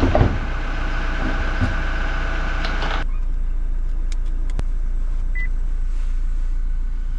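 A car roof box lid is pressed shut with a thump over the steady low rumble of the idling Toyota. Then, heard inside the cabin, the rumble goes on under a few sharp clicks and a short beep as a disc is fed into the dashboard head unit.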